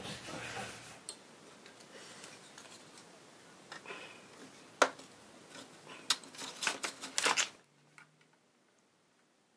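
Scattered light clicks and taps as a wooden height gauge and a pencil are handled against the wooden frames of a model ship's hull, with several quick clicks in a row about six to seven seconds in.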